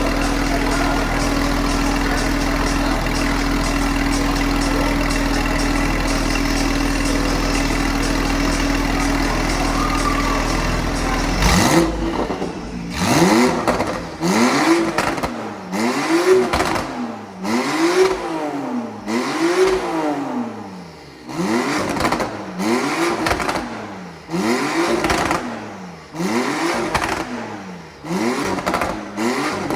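Porsche 911 Carrera flat-six engine idling steadily, then, about twelve seconds in, revved over and over in quick blips, each rising and falling in pitch, roughly one every second and a half.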